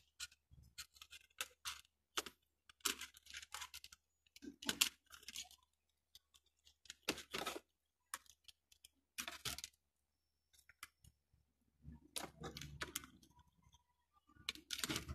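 Irregular light clicks, taps and rustling of a TV power-supply circuit board and its wires being handled and set back into the opened TV's chassis.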